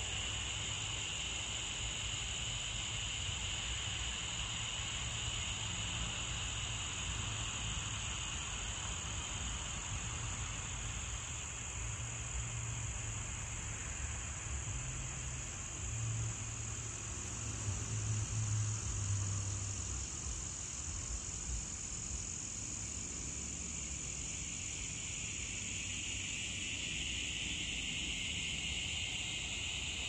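Crickets chirring steadily in a dense high chorus at two pitches; the lower-pitched voice fades out about halfway through and comes back near the end. A low rumble underneath swells briefly past the middle.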